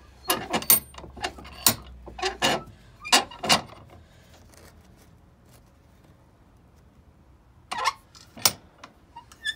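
Handling clatter at a workbench with a bench vise: a quick run of sharp knocks and metallic clinks, about a dozen in the first three and a half seconds, one with a short ringing tone. A quiet stretch follows, then two more knocks.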